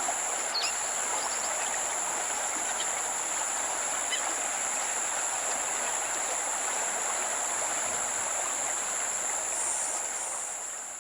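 Forest ambience: a steady high-pitched insect drone over the even rush of a stream, with a few faint bird chirps. The sound fades out near the end.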